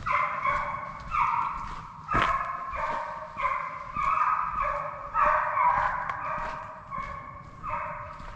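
Hunting hounds baying on a deer chase, long drawn-out bawls from several dogs overlapping one after another, with one sharp crack about two seconds in.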